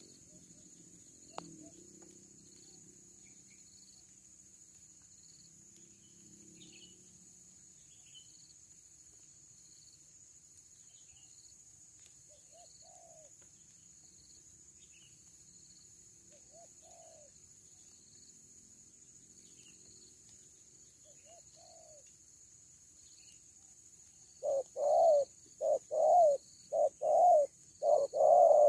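Spotted doves cooing: a few soft coos in the middle, then near the end a loud run of rapid coos, about two a second. A steady high insect buzz runs underneath, and there is a single sharp click just over a second in.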